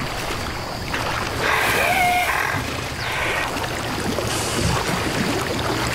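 Water splashing and churning as a hippopotamus thrashes a wildebeest carcass in a shallow river pool, with a short high tone about two seconds in.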